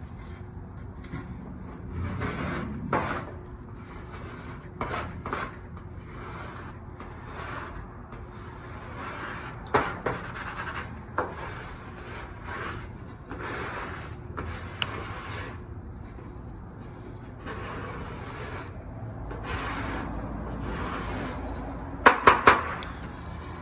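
Plastic spreader scraping paint remover across a painted steel car quarter panel in a series of uneven strokes, with three sharp clacks close together near the end.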